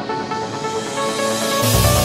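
Electronic dance music: a rising swell builds, then heavy bass and a beat come in near the end.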